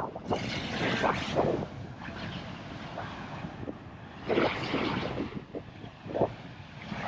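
Wind buffeting the microphone over the wash of breaking surf, with two louder surges of hissing water, one near the start and one in the middle.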